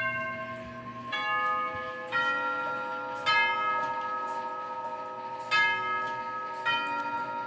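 Door chime sounded from the front door push button, playing a slow tune of struck chime notes that each ring on: four notes about a second apart, then after a short pause a second phrase begins.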